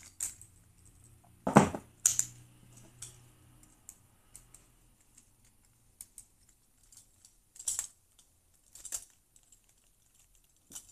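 Small metallic clicks and ticks of a dimple-lock picking tool being inserted and worked in a lock cylinder, with one louder click about one and a half seconds in and a few sharper clicks later.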